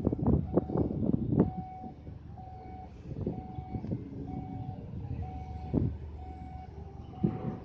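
Vehicle reversing alarm beeping steadily, about one beep every 0.8 seconds, over a low rumble. Several loud knocks in the first second and a half and a few more later on.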